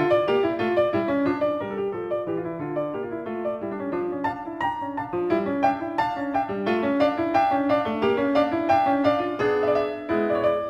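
Piano music with a fast, steady flow of notes.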